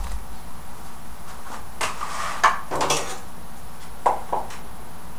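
Kitchen clatter from dishes and utensils being handled at a counter: a few short scrapes and rustles, then two quick knocks near the end.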